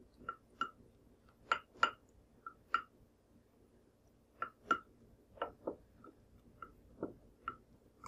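A spatula stirring melted chocolate in a glass bowl: light, irregular clicks and taps of the spatula against the glass, a couple a second, with a short pause about three seconds in.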